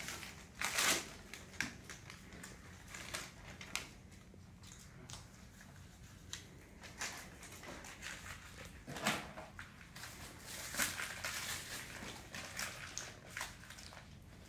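Rustling and crinkling of medical supply wrappers, with scattered small clicks and knocks, as an IV line on a training manikin's arm is handled and secured.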